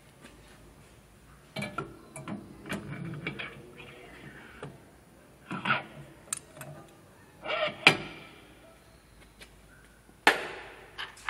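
Steel parts of a dicing machine clinking, knocking and scraping as they are handled and fitted onto the machine's shaft, in several short bursts with the sharpest clanks about eight and ten seconds in.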